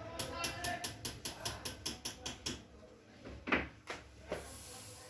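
Fast, even ticking, about six or seven clicks a second, from a high-voltage short killer pulsing across the shorted lines of an LED TV panel to burn out a short inside the glass. The ticking stops about two and a half seconds in, followed by two sharper single clicks.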